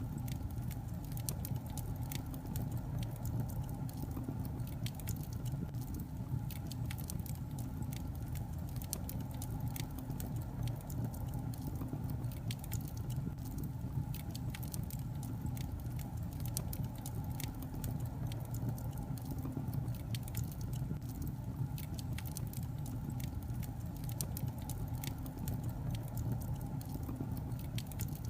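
Wood fire crackling steadily: many small sharp pops and snaps over a low, even rumble of burning logs.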